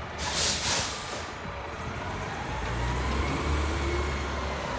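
Mack LEU front-loader garbage truck's air brakes releasing with a sharp hiss lasting about a second, then its engine running louder as the truck pulls forward.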